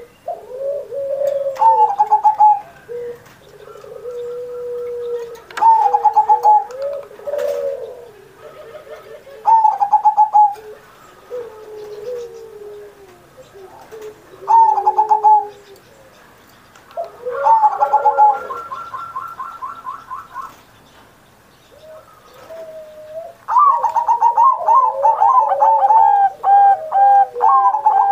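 Zebra dove (perkutut) singing its rolling coo phrases, one every few seconds, with a longer run of them near the end and quieter, lower coos in between.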